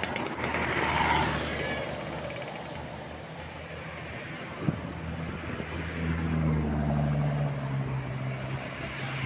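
Tour bus engine running close by on the road, with traffic noise. A steady low hum grows stronger about six seconds in, and there is a single short knock about halfway through.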